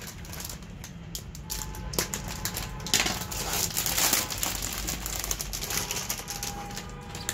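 Crinkling and rustling of a metallic anti-static bag being peeled open and pulled off a motherboard, a rapid run of small crackles with a louder stretch of rustling about three seconds in.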